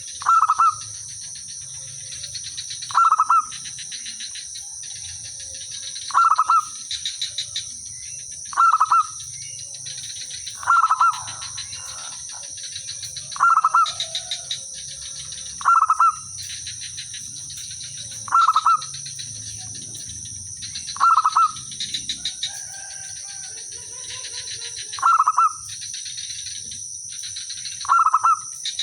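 Zebra dove cooing: a phrase of soft quick notes ending in a loud coo, repeated about every two to three seconds. A steady high-pitched drone runs underneath.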